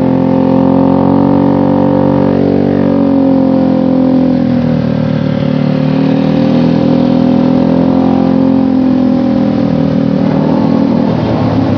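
Motorcycle engine running through an aftermarket trioval long-header exhaust, with a very round note. The engine speed sinks and rises again slowly a few times.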